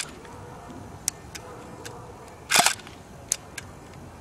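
Inexpensive stock airsoft pistol firing: one sharp crack about two and a half seconds in, with a few light clicks before and after it.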